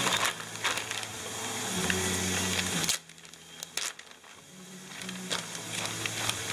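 Scattered light clicks and knocks of things being handled on a kitchen counter, over a low steady hum that drops away suddenly about three seconds in and slowly comes back.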